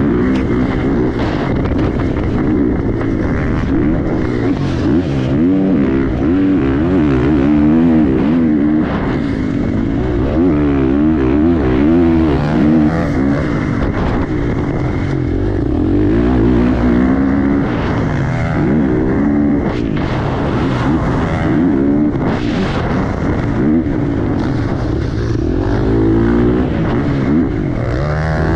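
Dirt bike engine ridden hard on a motocross track, its pitch rising and falling again and again with throttle and gear changes.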